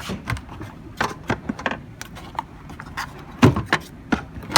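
Irregular clicks and knocks of plastic parts being handled as a wet-and-dry vacuum cleaner is opened to get at its filter, with a few louder clatters about a second in and again near the end. The vacuum is not running.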